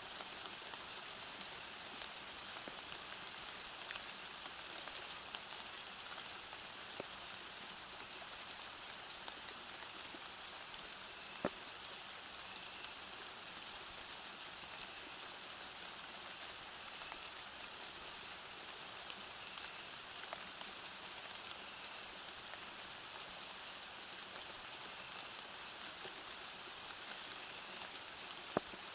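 Steady rain falling, with single drops ticking sharply on a close surface now and then. The loudest drops fall a little before the middle and near the end.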